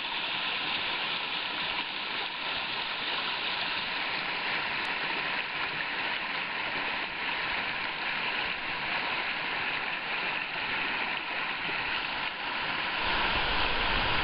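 Shallow rocky stream rushing over boulders, a steady rush of water. A low rumble comes in near the end.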